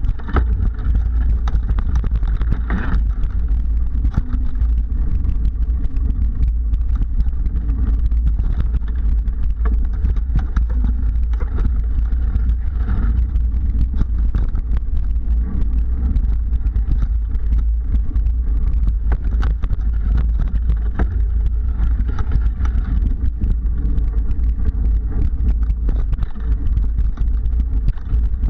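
Mountain bike rolling over a dirt singletrack trail, heard through a bike-mounted action camera: a steady low rumble of vibration and wind on the microphone, with frequent small rattles and knocks.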